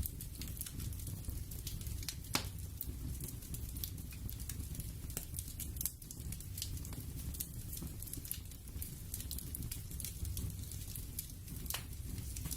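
Crackling-fire ambience: sparse, irregular sharp crackles over a low steady rumble.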